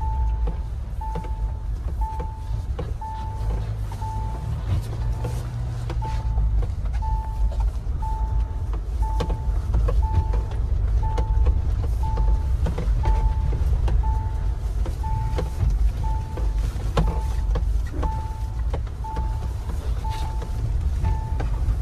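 Mahindra Thar 4x4 driving on a snowy road, heard from the cabin: steady engine and road rumble, with scattered clicks and knocks. Over it a dashboard warning chime beeps about once a second.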